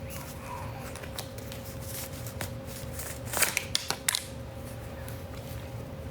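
Rustling and a few sharp clicks of things being handled, with a cluster of rustles and clicks about three and a half to four seconds in, over a faint steady hum.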